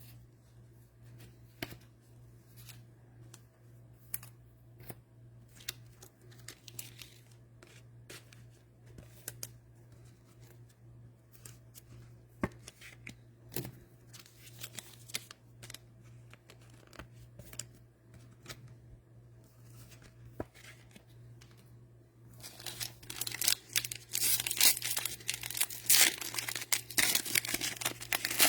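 Cellophane wrapping of trading-card packs being handled, with scattered soft rustles and clicks, then torn open and crinkled loudly and continuously from about 22 seconds in. A steady low hum sits underneath.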